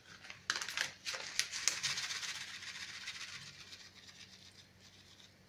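Ground spice shaken from a paper sachet and a spice jar onto chopped pork and fat in a glass bowl: a soft rustling hiss with a few light taps, fading away over the second half.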